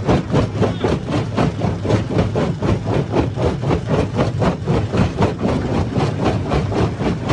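Hammer stone crusher running: a low engine drone under a steady, even clatter of about four to five knocks a second.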